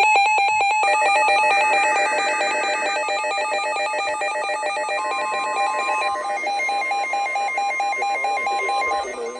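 Electronic emergency alert tones: a rapidly warbling ringing of several pitches at once. A steady single tone joins it about five seconds in and stops near the end.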